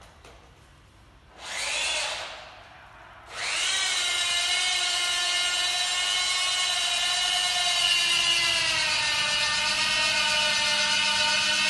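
Electric motor driving a car tilter as it lifts a car: a brief whine rising in pitch about a second and a half in, then from about three seconds a steady whine that holds, sinking slightly in pitch about eight seconds in.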